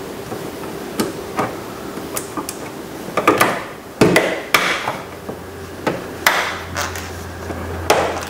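A series of sharp knocks and clicks as the door's interior trim panel is pressed and struck into place, its clips seating.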